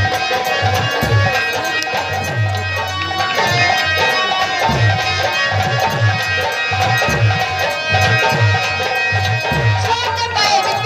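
Live folk-theatre music band playing: hand drums keep a steady beat under sustained melody tones. A woman's singing voice comes in near the end.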